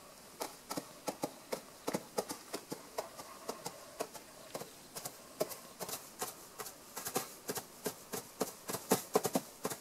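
Foley hoofbeats for running wildebeest, performed by hand: an uneven run of sharp knocks, several a second, a little louder near the end.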